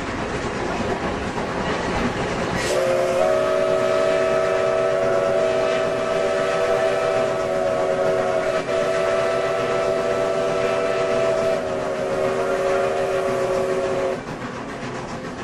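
Steam locomotive running, with a long multi-note chime whistle held for about eleven seconds, starting about three seconds in and cutting off near the end.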